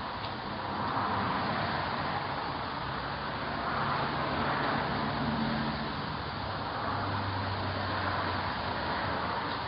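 Road traffic under a steady hiss, with a low vehicle engine hum that shifts in pitch a few times.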